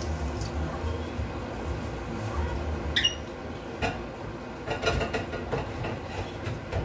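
Light knocks and clicks of kitchen things being handled, scattered through the second half, one with a brief squeak; a low rumble underlies the first couple of seconds.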